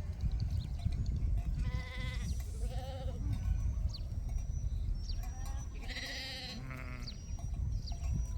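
Sheep bleating: four wavering calls, two about two and three seconds in and two more around six to seven seconds in.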